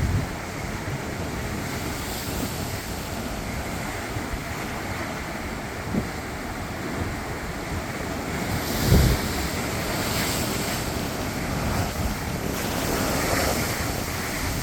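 Ocean waves washing in a steady hiss that swells and fades, with wind buffeting the microphone in low gusts, the strongest about nine seconds in.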